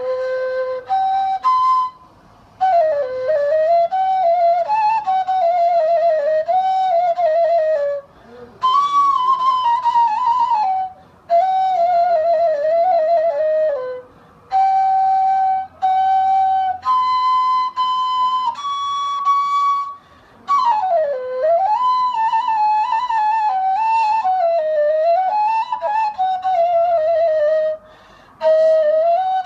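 Arabic ney, an end-blown reed flute, played solo: one melodic line in phrases of held notes, slides and wavering ornaments, broken by short pauses between phrases.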